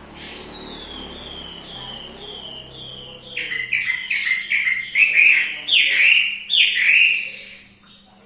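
A bird singing a run of short falling whistles. They are soft at first and much louder from about three seconds in.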